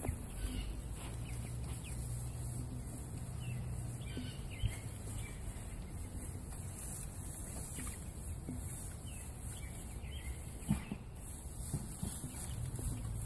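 Chickens clucking now and then in short calls.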